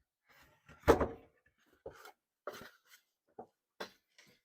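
Handling knocks and clunks: one loud knock about a second in, followed by several lighter knocks.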